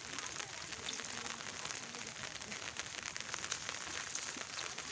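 Steady fine patter of water drops falling on a water surface, with small splashes.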